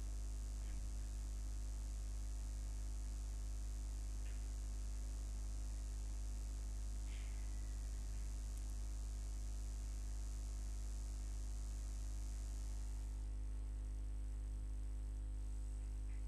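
Steady electrical mains hum and buzz with a high hiss, the background noise of the recording chain; the hiss drops away about thirteen seconds in. A few faint clicks sound along the way.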